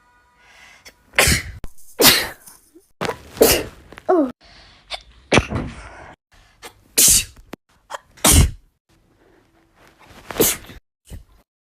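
A string of about eight loud sneezes, one every second or two, with smaller sneezes and sniffs between them.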